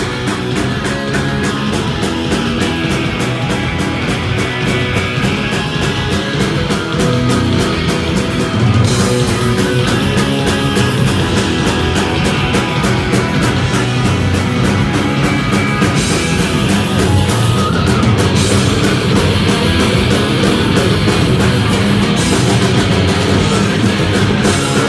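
Punk rock band playing live and loud: electric guitars, bass guitar and drums with a steady beat of cymbal hits.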